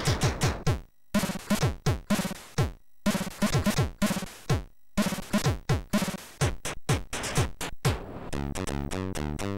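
Commodore 64 SID chip music: a beat of drum hits that drop quickly in pitch, broken by short silent breaks, changing about eight seconds in to fast arpeggiated chords.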